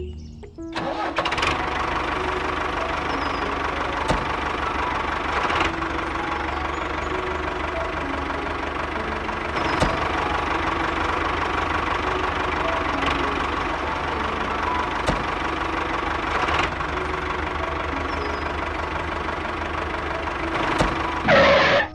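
Steady engine-like running of a DIY toy mini tractor as it drives and pulls its trolley, with a few sharp clicks.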